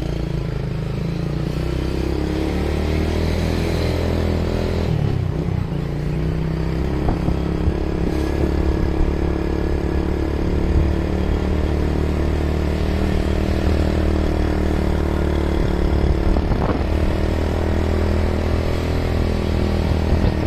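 Motorcycle engine running steadily while riding. The engine note drops and picks up again about five seconds in.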